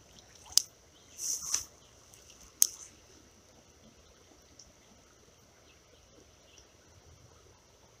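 Handling of a spinning rod and reel: a sharp click, a short scraping rustle, then another sharp click within the first three seconds. After that only a faint, steady high hiss remains.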